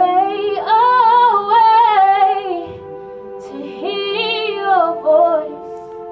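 Worship music: a woman's voice sings two phrases with vibrato over steady held accompanying chords.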